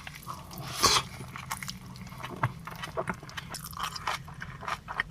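Close-up eating sounds: a bite about a second in, then chewing with many small crunches and clicks.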